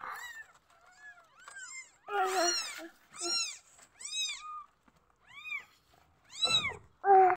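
Newborn kittens mewing in short, high, thin calls that rise and fall in pitch, about nine of them, the loudest near the end: the cries of young kittens feeling unsettled.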